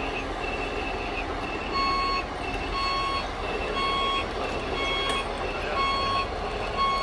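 Reversing alarm of a radio-controlled construction model's sound unit beeping about once a second, starting about two seconds in, as the CAT tracked loader backs up. Before that, a higher electronic tone repeats about twice a second over a steady background of machine noise.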